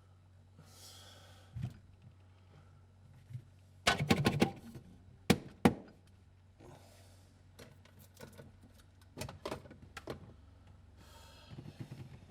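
A run of sharp knocks and clicks over a steady low hum. A quick cluster of knocks comes about four seconds in, two sharp clicks follow soon after, and a few softer knocks come later.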